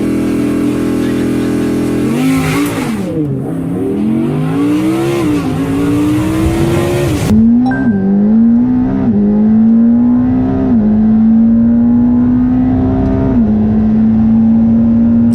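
Performance car's engine on a launch-control start: held on the launch rev limiter for about two seconds, then pulling away hard, its note climbing through several gears with a drop in pitch at each quick upshift.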